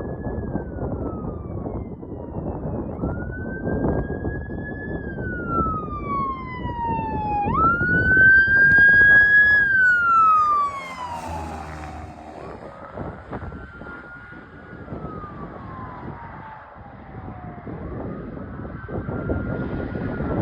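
Ambulance siren on a slow wail, its pitch rising and falling about every five seconds over steady traffic noise. It is loudest about eight to ten seconds in, then goes on more faintly.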